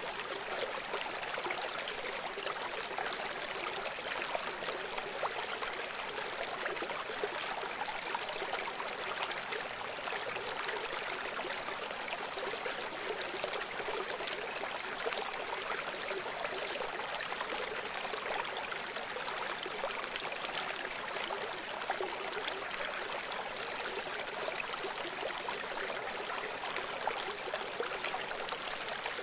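Steady running water, like a stream, an even rushing with no breaks or changes.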